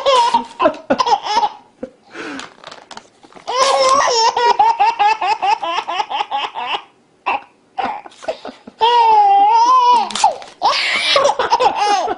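A baby laughing hysterically in repeated fits of belly laughs, with a long run of rapid laughing pulses and a drawn-out, wavering squeal about nine seconds in. Paper is torn between the fits.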